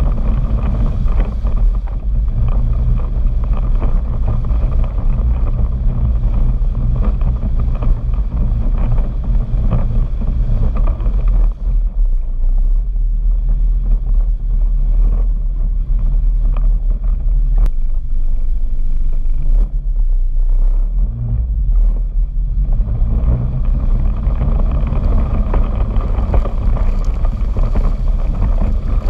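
Arctic Cat Wildcat Sport 700 side-by-side engine running while driving up a creek bed, heard from a camera on the hood, with wind on the microphone. The engine eases off partway through and picks up again at about 22 s. Near the end, water sprays up over the hood.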